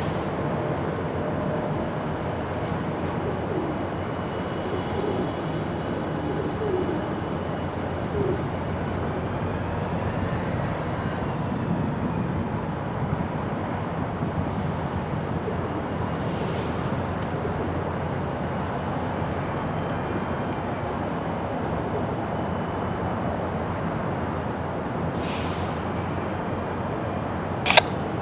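Steady rumble of diesel locomotives working in a rail yard.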